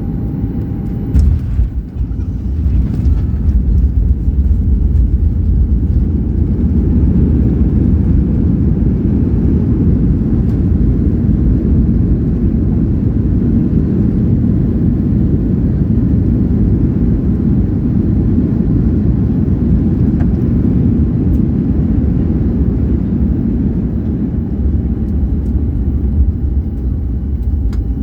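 Steady low rumble of airliner cabin noise, the engines and airflow heard from inside the cabin during the landing, with a brief loud jolt about a second in.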